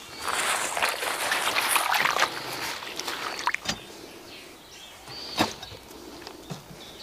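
Hands swishing leafy greens through water in a stainless steel bowl, a splashing, sloshing noise for about the first three seconds. After that it goes quieter, with a few light knocks.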